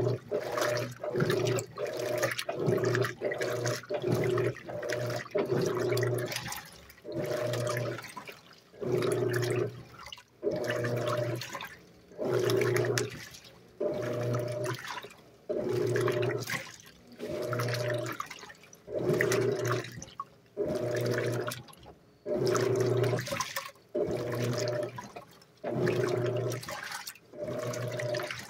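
Electrolux LAC 12 top-loading washing machine agitating: the agitator motor hums in alternating strokes as the water and clothes slosh in the tub. About six seconds in, the rhythm changes from quick strokes, about two a second, to longer strokes, about one a second, as the cycle switches agitation pattern.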